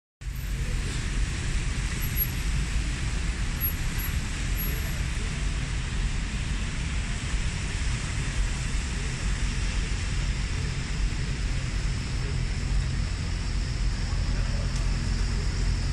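Steady city road traffic noise: a low rumble of engines under an even hiss, with no single vehicle standing out.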